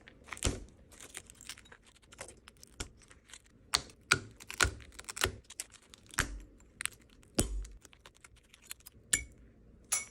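Irregular sharp clicks and taps of a tool working at an iPhone 11's broken back glass, with small pieces of glass cracking off.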